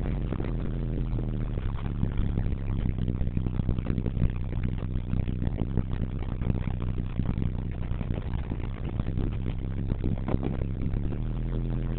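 Isuzu turbo diesel engine running steadily under way, heard from inside the cab.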